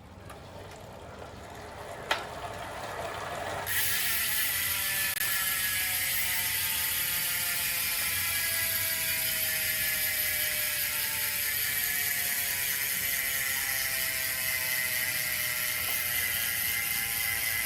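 Ratcheting buzz of a Fulcrum Quattro LG rear wheel's freehub as the wheel freewheels. It starts loud about four seconds in and slowly drops in pitch as the wheel coasts down. The buzz is an even, healthy sound for a training wheelset.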